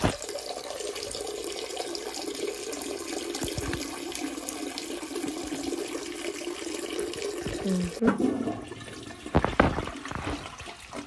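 Toilet flushing, with a steady rush of water for about eight seconds, then a more uneven, broken sound.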